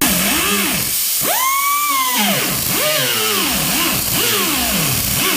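Background music: a melodic line of sliding, arching notes over a hissy backing, starting abruptly.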